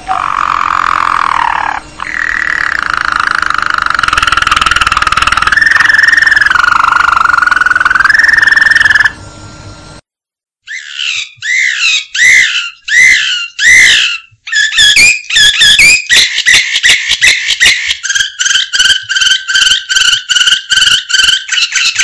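Domestic canary singing: a long rolling trill that steps up and down in pitch for about nine seconds, then after a short break, downward-sweeping notes repeated about twice a second that speed up into fast repeated-note tours.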